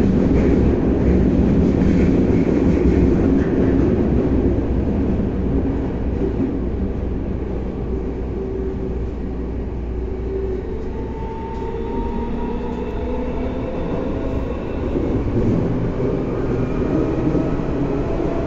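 Tokyo Metro Tozai Line train with permanent-magnet synchronous motors running underground, heard from inside the car: steady rumbling rolling noise. It eases off mid-way, and from about eleven seconds in thin motor and inverter tones rise in pitch.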